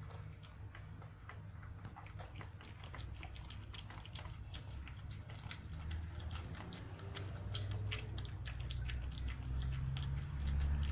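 Pekingese dog chewing meat treats: many small, wet clicks of its mouth and teeth, with a low rumble building in the second half.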